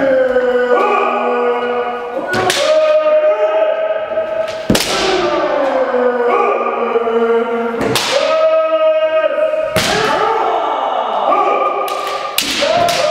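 Kendo sparring: sharp cracks of bamboo shinai strikes landing every two to three seconds, each followed by long, drawn-out kiai shouts from several fencers that overlap one another.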